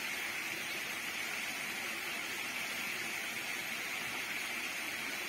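Steady hiss of flowing river water, even and unbroken, with no single event standing out.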